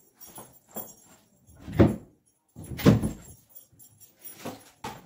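Wardrobe doors being opened and closed: a series of knocks and bumps, the two loudest about two and three seconds in.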